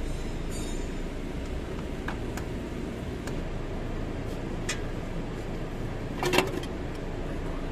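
Scattered light metallic clicks and clinks of hand tools and parts while a replacement starter motor is being fitted, with a brief louder clatter about six seconds in, over a steady background hum.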